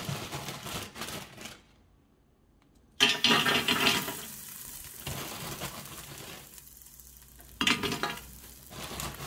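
Frozen chips dropped by hand into an air fryer's empty basket, rattling and clattering in two sudden bursts about four and a half seconds apart, with a low steady hiss between them.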